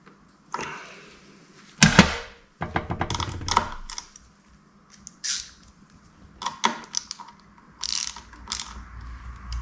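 Small hand ratchet clicking in short runs of ticks as it tightens the pivot nut of a motorcycle front brake lever, with a sharp knock of metal tools just under two seconds in.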